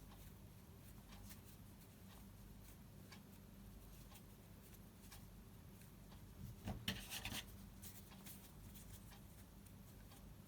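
Quiet handling sounds from food preparation: faint scattered ticks and rubbing over a low steady hum, with a brief louder scratchy clatter about seven seconds in.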